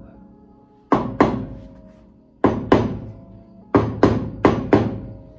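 Hammer tapping a metal grease cap onto a 1964 Ford Mustang's front wheel hub, eight sharp metallic strikes that each ring briefly: two pairs, then a run of four near the end.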